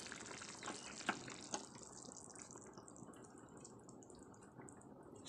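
Prawn curry bubbling faintly in a metal kadai, with a few small pops in the first couple of seconds; the bubbling fades as the gas has just been turned off.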